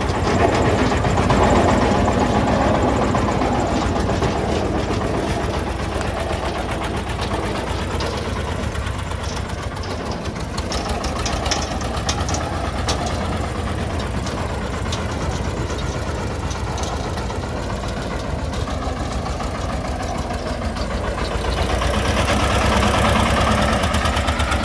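Diesel engine of a loaded công nông farm dump truck running under load as it drives slowly over a muddy dirt track, with a steady knocking beat; it gets a little louder near the end.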